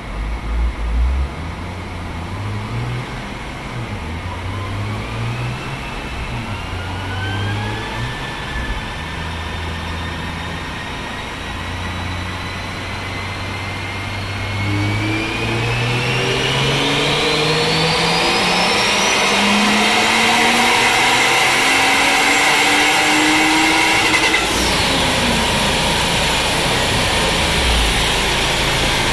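Turbocharged 2JZ-GE inline-six in a Lexus IS300 on a chassis dyno making a power pull. It runs up through the gears, then from about halfway climbs steadily in revs at full throttle with a high whine rising alongside. It lifts off sharply near the end and the revs fall, leaving the spinning rollers rushing loudly.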